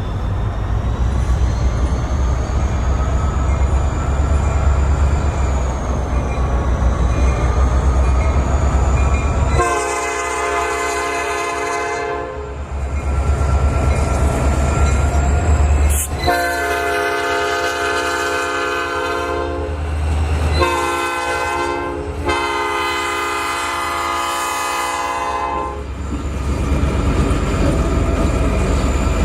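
Diesel freight locomotive approaching with its engine rumbling, then sounding its multi-chime air horn in the grade-crossing pattern: long, long, short, long. The rumble of the engine and rolling rail cars returns after the last blast.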